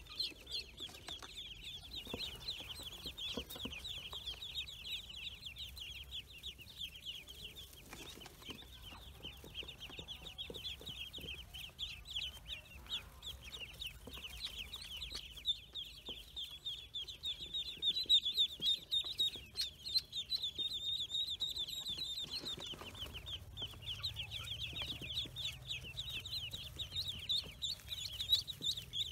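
A crowd of newly hatched ducklings peeping without pause, many high, short chirps overlapping into one continuous chorus.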